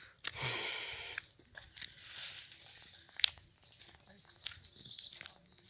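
Mango tree leaves and branches rustling as fruit is pulled down, with a sharp snap about three seconds in. Birds chirp and trill in the background.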